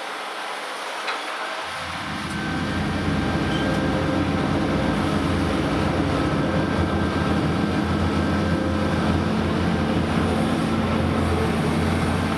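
Heavy diesel engine of large earthmoving machinery running steadily with a low hum, growing louder about two seconds in.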